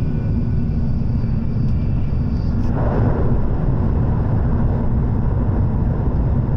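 Steady low rumble and rushing noise of an N700S Shinkansen running at high speed, heard inside the passenger cabin; the rushing noise grows louder about three seconds in.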